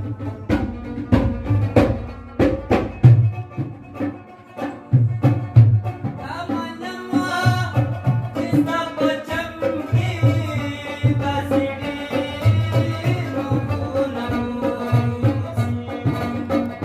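Pashto folk music: a rabab playing over a steady hand-drum beat, with sharp plucked strikes in the first few seconds and a wavering melody from about six seconds in.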